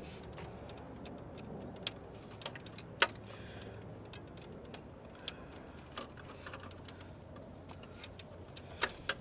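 Scattered small plastic clicks and taps as the video card slot's retention latch is pushed on, with the card not yet coming free; the sharpest click comes about three seconds in. A low steady hum runs underneath.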